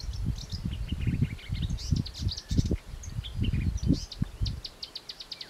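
Small birds chirping and singing, including a quick run of rapid notes near the end, over a low gusty rumble of wind buffeting the microphone that dies away about four and a half seconds in.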